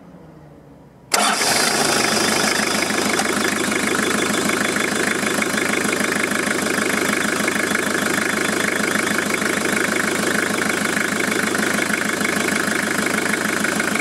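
Toyota Hilux 5L four-cylinder diesel idling steadily with the alternator belt off, coming in suddenly about a second in. With the alternator out of the drive it is a way nicer noise, pointing to the alternator's bearings as the source of the earlier clicking.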